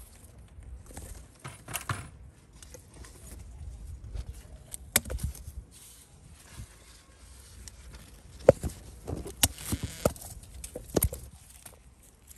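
Eggplant plants being handled during harvesting: leaves and stems rustle, with several sharp clicks, most of them in the second half.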